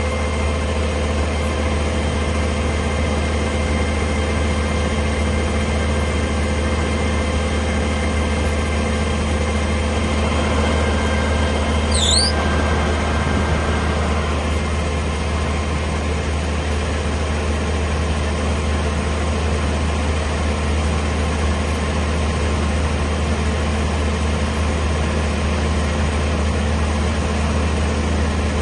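Kubota WR575 combine harvester's diesel engine running steadily at idle, with an even low drone and a few steady tones. A single short, high squeak about twelve seconds in.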